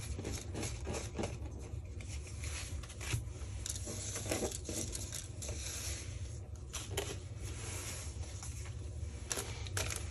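A stack of cardstock die cuts being handled and put back into their package: irregular rustling and crinkling with small taps.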